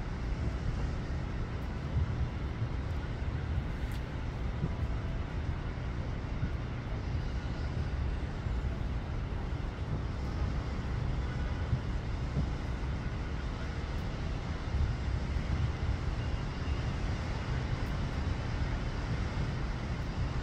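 Heavy rainstorm: a steady hiss of rain over a low, uneven rumble.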